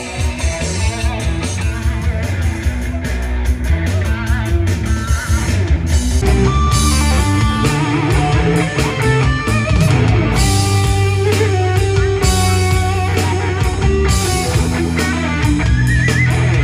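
Live rock band playing loudly: electric guitars, bass guitar and drum kit.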